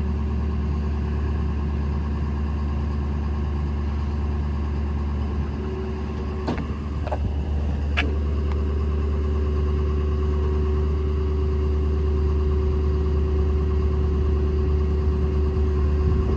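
Hydraulic outriggers of a 2012 Ford F550 bucket truck lowering, over its 6.7 Power Stroke diesel running steadily. A steady whine comes in about five and a half seconds in and holds, with a few clunks between six and eight seconds.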